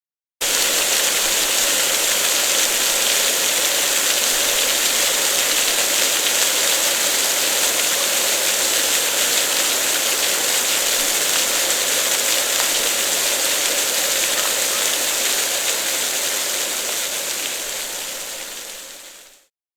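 Water fountain splashing steadily: a constant hiss of falling water that begins suddenly and fades out over the last two seconds or so.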